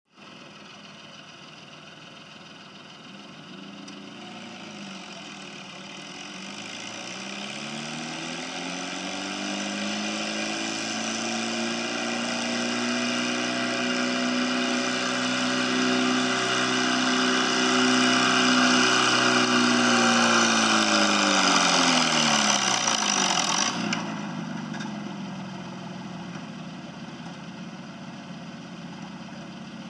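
A 1948 Allis-Chalmers WD tractor's four-cylinder gasoline engine pulling a weight-transfer sled at full throttle. It grows louder as it comes closer, its pitch climbing and then holding steady. Near the end the engine note sags as the sled stops it, a loud rushing noise cuts off suddenly, and the engine drops back to idle.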